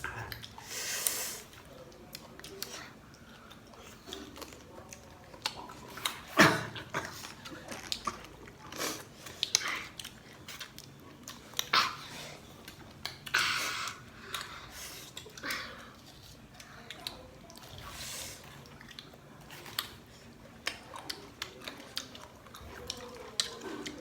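Close-up chewing and biting of crisp, juicy Marian plum fruit: irregular wet crunches and mouth clicks, with the loudest bite about six and a half seconds in.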